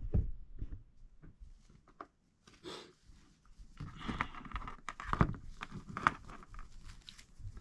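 Small objects being handled on a work surface: scattered light clicks and taps with some rustling, denser in the second half.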